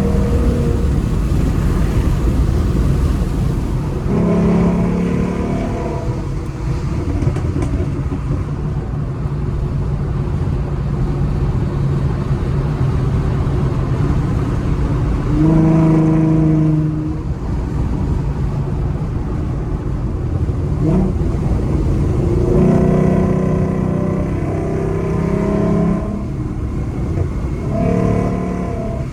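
2014 Ford Mustang V6's 3.7-litre engine breathing through BBK shorty headers and a Roush axle-back exhaust while driving: a steady low rumble, with four stretches where a louder engine note comes in and holds for one to three seconds.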